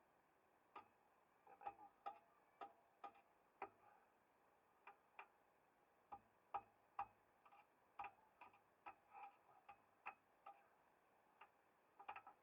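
Faint, irregular metallic clicks and light clinks, a few a second at times with gaps between, typical of hand tools working on metal.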